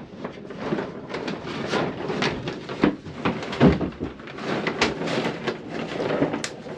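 Irregular knocks, bumps and rustling of someone moving about and handling things inside a wooden boat hull, with a heavier thump about three and a half seconds in.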